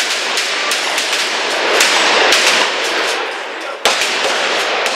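Several shotguns firing in an irregular, overlapping string of shots from a line of shooters, each blast ringing on under the range's roof. A sharp shot near the end stands out.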